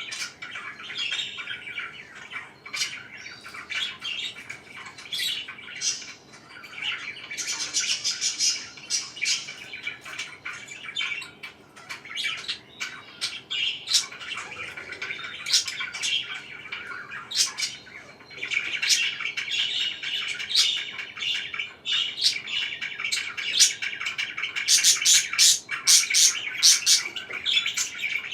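Parakeets chirping and chattering without pause, with short sharp squawks mixed in. The chatter grows busier and louder about two-thirds of the way through.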